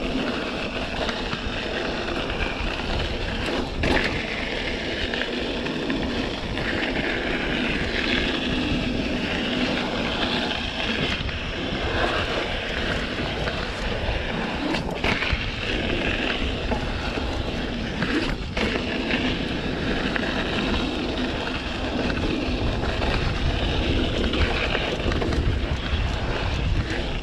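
Mountain bike rolling fast over a dirt trail: a steady rush of tyre and rattle noise with wind on the microphone, and a few sharp knocks from bumps.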